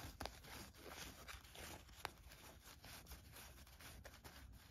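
Faint rustle of thin paper game cards sliding against one another as a stack is fanned out in the hands, with scattered light ticks as card edges flick past each other.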